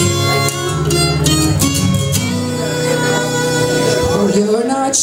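Karaoke backing track of a country song playing its instrumental intro: a full band with a steady drum beat and string instruments, with no lead vocal yet.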